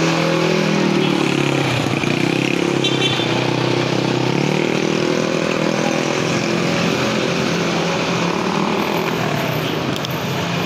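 Motorcycle engine idling close by with a steady, even note over a constant hum of street traffic; the engine note grows weaker about halfway through.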